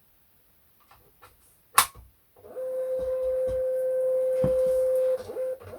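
A sharp click, then a Munbyn thermal label printer's feed motor whining on one steady pitch as it draws the freshly loaded labels through, with a few soft knocks.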